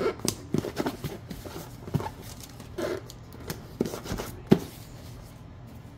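Hands handling a cardboard USPS Priority Mail box, pressing down and closing its flaps: a run of irregular cardboard taps and scrapes, the sharpest about four and a half seconds in, then it settles.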